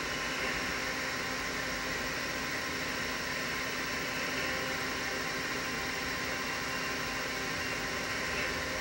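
Steady room noise: an even hiss with a faint low hum, unchanging throughout.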